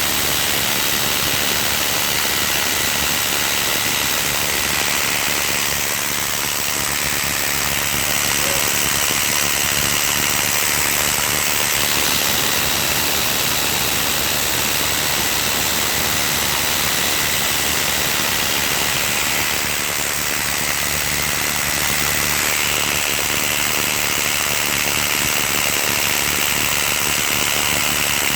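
Concrete hammer drill's electric motor running continuously with a steady whine that shifts pitch slightly about six seconds in and again near twenty-two seconds; the drill's carbon brushes are sparking.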